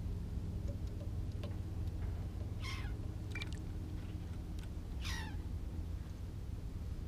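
Two short animal cries, each falling in pitch, about two and a half seconds apart, over a steady low hum.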